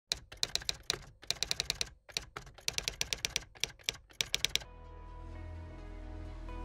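Typing sound effect: rapid key clicks in several quick runs as title text types itself out, stopping after about four and a half seconds. Soft background music then fades in.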